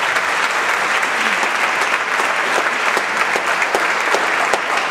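Congregation applauding steadily at the close of a sermon, many hands clapping at once.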